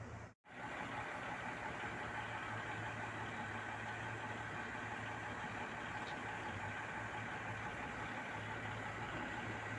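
Caterpillar 745 articulated dump truck's diesel engine running steadily as the loaded truck drives slowly past. The sound drops out completely for a moment just after the start.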